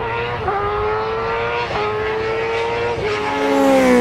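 High-revving racing engine sound effect accelerating hard, its pitch climbing and then dropping at about three gear changes, with a rising whoosh swelling near the end.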